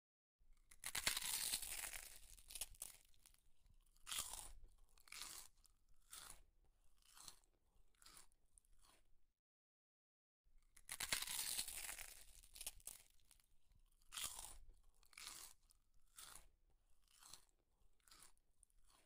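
Close-up chewing and crunching of a person eating rice and fish curry by hand. Two runs of it, each starting with a loud burst and thinning into short separate chews, split by a second of dead silence about nine seconds in.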